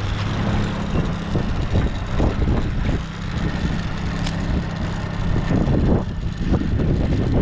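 Boat motor running steadily at idle, a low even hum, with wind buffeting the microphone.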